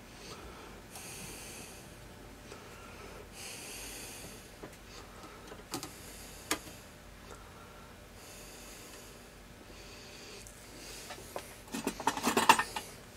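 A man breathing audibly through his nose, slow breaths a couple of seconds apart, with a few light clicks of a small circuit board being handled. Near the end comes a brief clattering run of clicks, the loudest sound.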